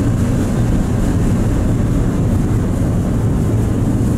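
A large passenger ferry under way, its engines giving a steady low drone with a faint hum.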